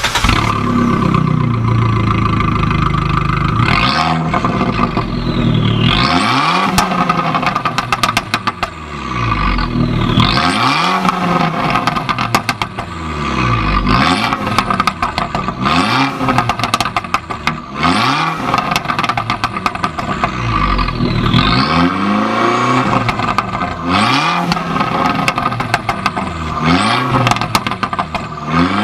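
Abarth 695 Biposto's turbocharged 1.4-litre four-cylinder engine, breathing through an Akrapovič exhaust, blipped up and let fall again about every two seconds. Sharp pops and bangs crackle from the exhaust as the revs drop back.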